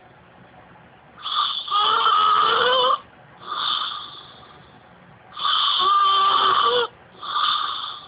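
A woman snoring loudly in her sleep: two breath cycles, each a long snore with a wavering whistle running through it, followed by a shorter snore.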